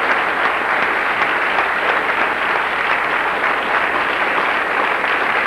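Audience applauding, many people clapping at once in a steady, unbroken wash of applause.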